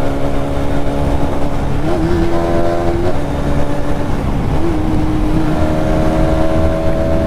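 Hero Xtreme 250R's single-cylinder engine running under way, its note holding steady, then rising briefly at about two seconds and again past four and a half seconds before settling back, over a constant rush of road and wind noise.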